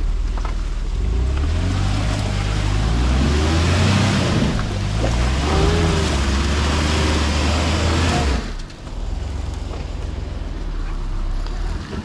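Jeep Wrangler's engine revving hard, the pitch rising and falling, as its mud tires spin in deep rutted mud and sand, with a loud rushing spray of flung mud. About eight seconds in the revs cut off sharply, and the engine drops back to a low, quieter running sound.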